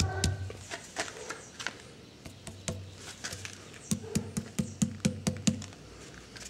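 A fist knocking on hardened concrete: scattered sharp raps, then a quick run of about five dull knocks a second around four seconds in, over a low steady hum. The solid knocks are a test that the cured concrete is strong.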